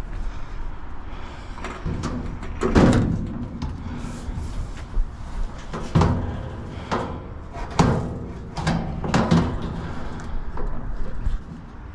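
A series of hollow knocks and thumps as heavy parts are handled and set down: four loud ones a second or two apart, with smaller knocks between.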